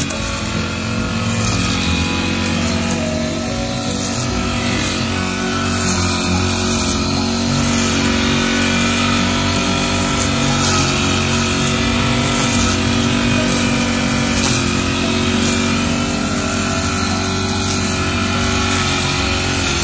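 Small engine of a motor grass cutter running steadily with the throttle open, holding about the same speed throughout.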